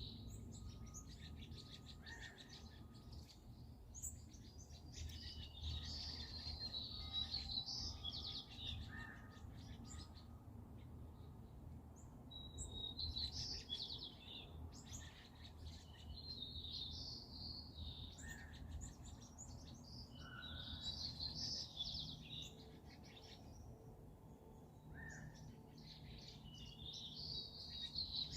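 Songbirds singing, short chirping and trilling phrases that come again every few seconds with brief pauses between, over a steady low rumble.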